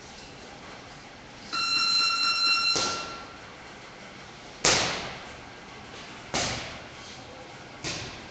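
A boxing gym's electronic round timer sounds a steady buzzer tone for about two seconds, and punches smack into focus pads four times, roughly one every second and a half, the second the loudest.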